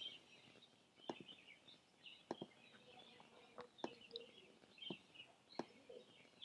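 Near silence with faint, scattered clicks from a laptop touchpad used to draw, about one a second, over faint bird chirping in the background.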